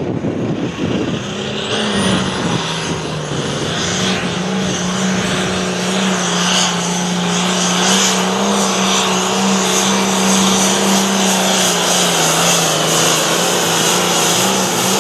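Hot farm pulling tractor's diesel engine running hard through a pull. It comes in about a second in and dips in pitch briefly around three seconds in, then holds a steady high pitch with a faint high whine rising over it. It cuts off abruptly at the end.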